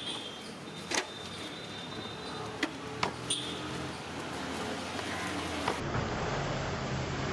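Steady street traffic noise, with a few sharp knocks of a knife striking the jackfruit and the wooden stall board as the fruit is cut. Near the end the traffic rumble gets louder and deeper.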